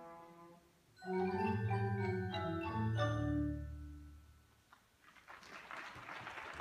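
A percussion ensemble of marimbas, vibraphone and other mallet instruments with low drums plays its closing bars: a held chord fades, then about a second in a run of loud struck chords rings out over a deep low note and dies away. Audience applause starts about five seconds in.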